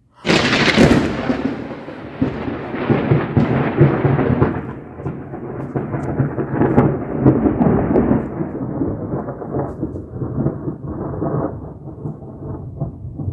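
Thunder from a very close cloud-to-ground lightning strike: a sudden loud crack a fraction of a second in, then a long rolling rumble that slowly fades and grows duller.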